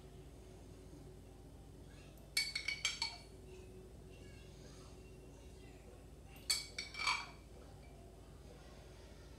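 A metal spoon clinking against a glass pasta-sauce jar while sauce is scooped out: two short flurries of several quick clinks, one about two and a half seconds in and another about four seconds later.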